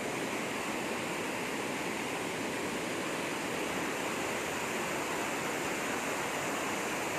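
Steady rush of fast-flowing water, strong after heavy rain.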